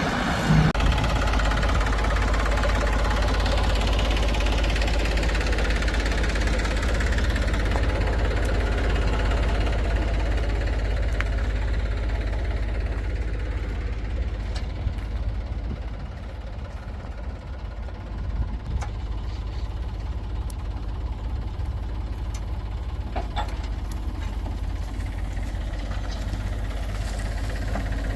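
Diesel engine of heavy farm machinery running steadily with a low drone, louder in the first half and easing off a little past the middle.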